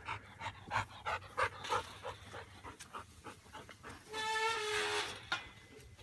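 Dog panting quickly and rhythmically, about three or four breaths a second, from hard scent work on a track. About four seconds in, a single drawn-out squeal lasting about a second, stepping slightly down in pitch.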